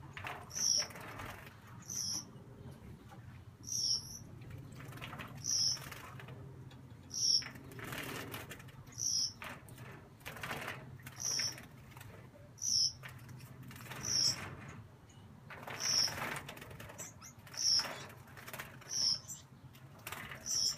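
Young Gouldian finches bathing in a shallow water dish, wings fluttering and splashing in the water in short flurries, with a short high bird call repeated about every two seconds.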